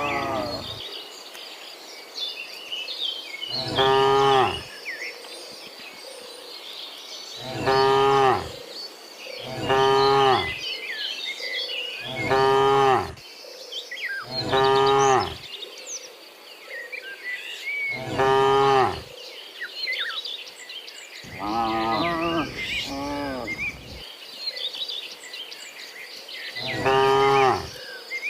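Cows mooing over and over, about nine moos each lasting about a second, coming every two to four seconds.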